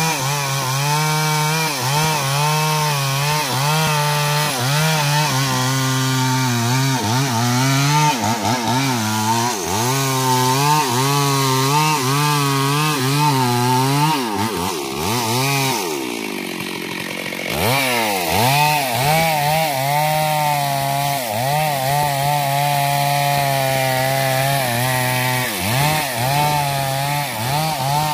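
Stihl MS 382 two-stroke chainsaw cutting into the trunk of a sengon tree at full throttle, its engine pitch wavering up and down as the chain bites into the wood. About halfway through, the revs fall away to a low idle for a couple of seconds, then climb back up as cutting resumes.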